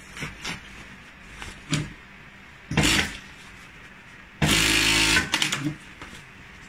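Industrial sewing machine running in short bursts, the longest about a second long about four and a half seconds in, with a shorter run near three seconds. Between the runs, brief rustles of fabric being handled.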